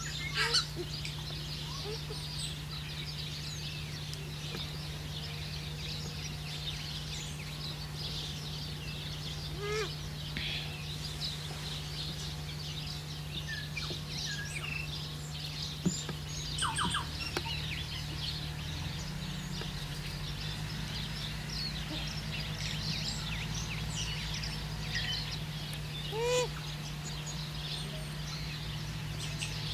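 Background chorus of many small birds chirping and calling, over a steady low hum, with a few louder short calls standing out, one near the end.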